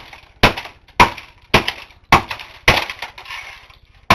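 A hammer striking a dead laptop again and again, cracking and shattering its plastic case and parts: about two hard blows a second, with a short pause near the end.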